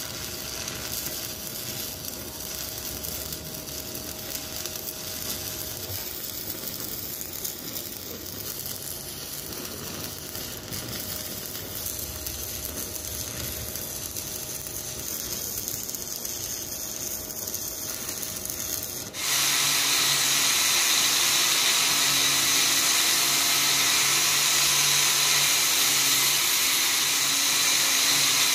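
Stick (arc) welding on steel grill bars, crackling and sizzling steadily for about the first two-thirds. Then an angle grinder starts abruptly on a steel bar and runs louder and steadily to the end.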